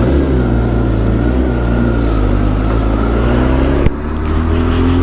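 A superbike's engine pulling away from a stop and accelerating at low speed, heard from on the bike. About four seconds in there is a brief dip at a gear change, then the pitch climbs again.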